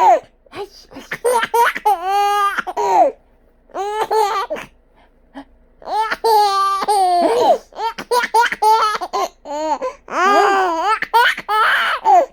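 A baby laughing in about five bouts of high-pitched, rippling laughs, each rising and falling in pitch, with short pauses between them.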